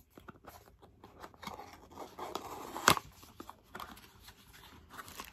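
Small cardboard blind box being opened by hand: the cardboard rustles and scrapes with scattered light clicks, and there is one sharp snap a little under three seconds in.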